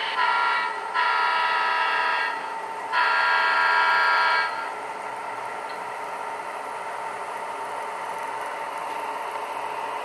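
HO-scale Santa Fe diesel locomotive's sound decoder blowing its horn, three blasts in the first five seconds, through the model's small onboard speaker. The decoder's steady diesel engine sound runs on after the horn.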